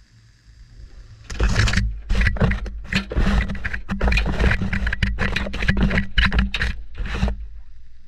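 Front-loading washing machine drum turning a load of laundry, heard from inside the drum: a run of rough scraping and rustling bursts as clothes tumble against and brush over the camera, over a low hum. It starts about a second in and dies away near the end.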